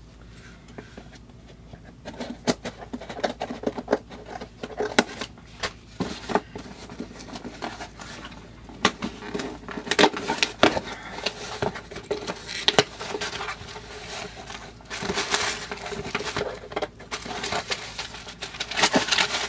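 Hands opening a cardboard shipping box and handling its packaging: scattered taps and clicks with crinkling, rustling stretches, busiest near the end.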